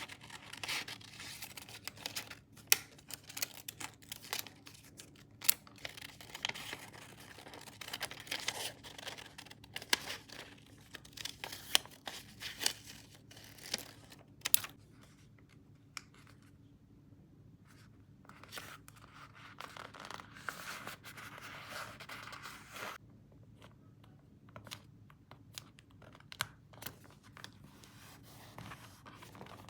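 Paper being handled close up: crackling, crinkling and tearing, with many sharp snaps in the first half, a quieter spell, then a few seconds of smoother steady rasping before scattered small clicks.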